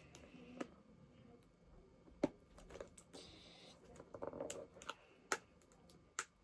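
Eating a strawberry puff pastry: scattered sharp mouth clicks and crunches from chewing, with a short rustle about three seconds in.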